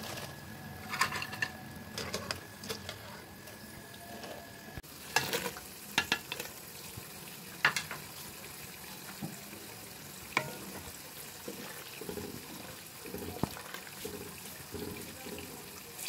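Metal utensil clinking and knocking against a cooking pot, scattered single knocks after a break about five seconds in, over a faint steady sizzle of cooking food.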